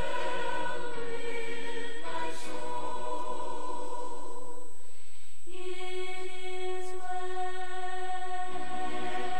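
Slow choral music with voices singing long held notes. About five seconds in the sound thins, one note is held for about three seconds, and then the fuller singing resumes.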